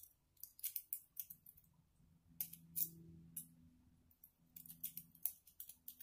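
Lock-pick rake being worked in the keyway of a pin-tumbler bike padlock under tension, making a run of quick, irregular small metallic clicks and scrapes as it is raked across the pins.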